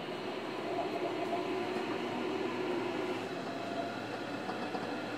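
JR Kyushu 305 series electric train running, heard from inside motor car MoHa 305-106: a steady motor whine over the rumble of wheels on rail.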